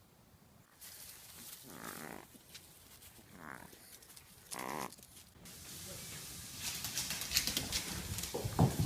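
An animal's short calls, three of them about a second or so apart, followed near the end by a run of clicks and low knocks.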